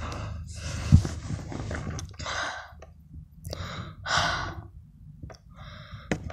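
A person breathing hard close to the microphone, a series of separate noisy breaths about half a second each, with a single thump about a second in.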